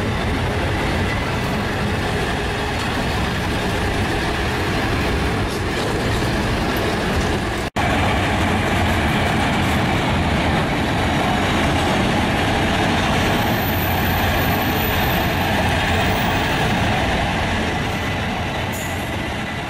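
Long freight train of hopper wagons and container cars rolling past, a steady rumble of wagons on the track with faint wheel clatter. The sound cuts out for an instant about eight seconds in.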